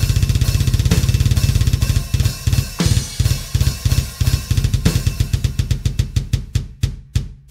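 Drum kit with triggered double bass drums: fast, even runs of kick-drum strokes under snare and cymbals. The strokes loosen into a sparser, broken pattern about two seconds in.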